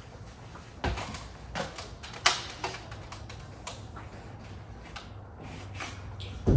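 Irregular clicks and knocks, about half a dozen spread over several seconds with the sharpest about two seconds in, from the aluminum roof rack and its hardware being handled and set onto the truck's cab roof.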